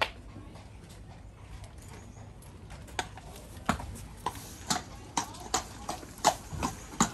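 A horse's hooves clip-clopping on hard ground, irregular steps that come more often from about halfway through as the horse starts to walk.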